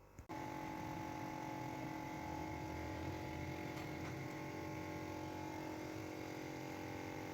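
A steady mechanical hum with several held tones, starting about a third of a second in.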